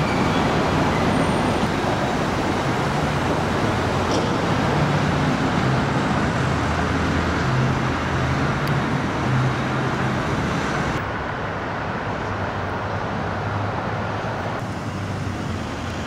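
Road traffic noise: a steady rumble of passing cars and engines. It drops suddenly about two-thirds of the way in and shifts again shortly before the end.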